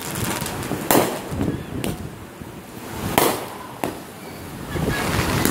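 Aerial fireworks bursting overhead: about five sharp bangs at irregular intervals, the loudest about a second in and about three seconds in.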